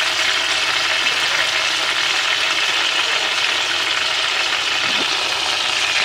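Steady sizzling of a top round roast's end pressed into hot drippings in a cast iron pot, searing to brown a pale spot on the end.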